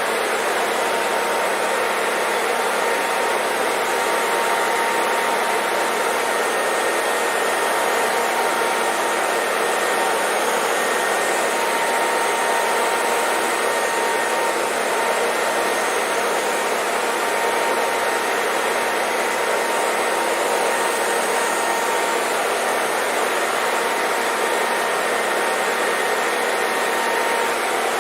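Hair dryer running steadily: an even rushing hiss of blown air with a faint, steady motor whine.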